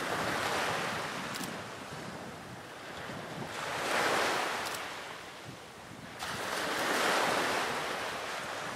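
Sea waves washing in, rising and falling in three swells about three seconds apart.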